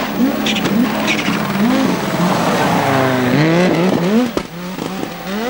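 Audi Sport Quattro S1 rally car's turbocharged five-cylinder engine revving hard, its pitch rising and falling over and over through the gears, then climbing steeply about three seconds in as the car accelerates away. A single sharp crack about four and a half seconds in.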